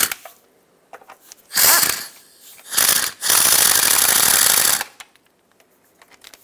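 Ratchet on a long extension running down the transmission oil pan bolts: three bursts of rapid clicking, the last and longest lasting about a second and a half, as the bolts are snugged down before final torque.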